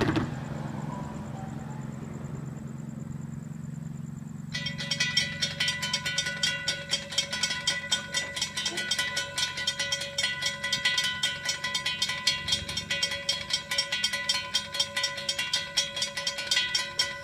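A low engine rumble, then about four and a half seconds in a railroad grade-crossing bell starts ringing, with rapid even strikes about three a second, as the warning for an approaching train.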